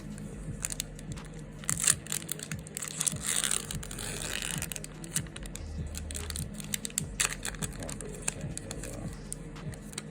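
Pokémon trading cards being handled and flipped through: quick light clicks and card-on-card rustling, busiest a couple of seconds in, over steady background music.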